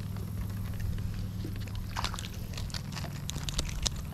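A hooked sunfish splashing and thrashing at the water's surface as it is reeled in and lifted out: a quick run of sharp splashes and clicks starting about halfway through, over a steady low rumble.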